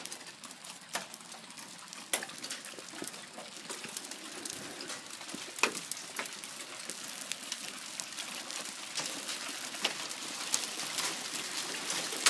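Rain falling, with scattered sharp taps of drops striking nearby surfaces, growing denser and louder toward the end.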